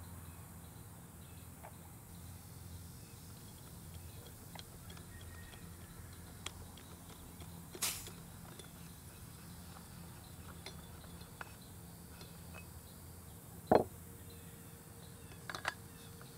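A few sharp metallic clicks over a faint steady background as an air rifle's parts are handled. The loudest comes as a single knock about fourteen seconds in.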